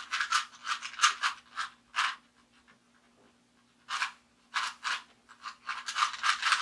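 Rubik's Cube being twisted by hand: quick runs of scraping, clicking plastic layer turns, with a pause of about two seconds in the middle.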